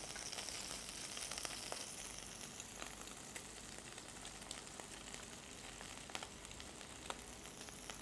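Shrimp sizzling in olive oil in a nonstick frying pan: a faint, steady hiss with scattered small pops and crackles, a little louder in the first couple of seconds.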